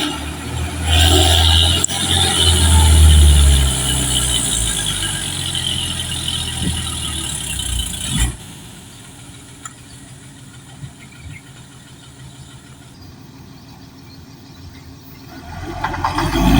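An earth-moving machine working: a low rumble with a high squeal over it, which cuts off suddenly about eight seconds in. Quieter mechanical running follows, and the level builds up again near the end.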